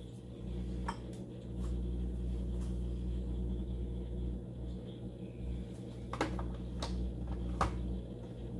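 A few light clicks and knocks, strongest in a cluster of three from about six seconds in, over a steady low hum.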